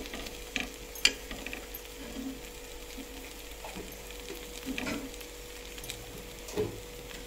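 Rupchandi (silver pomfret) fish pieces sizzling on a flat tawa in a little mustard oil in the last minute of frying, while a spatula scrapes and taps the pan a few times, the sharpest tap about a second in.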